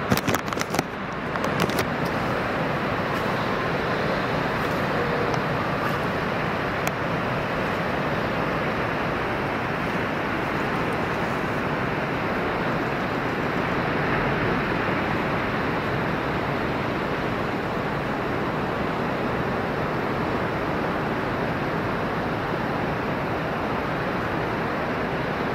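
Steady roar of heavy ocean surf, with a few sharp crackles in the first couple of seconds.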